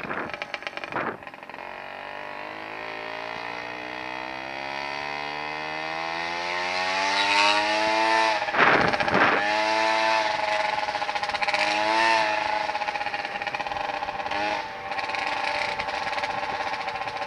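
Kick scooter rolling on city pavement: its wheels hum, rising steadily in pitch as it picks up speed and then holding, with a few jolts from bumps along the way.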